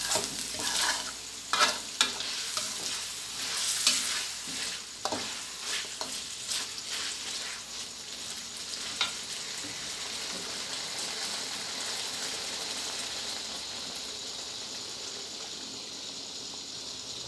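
Chicken in curry paste sizzling in a metal wok, stirred with a spatula that scrapes and knocks against the pan over the first nine seconds or so. After that it settles into a steady sizzle.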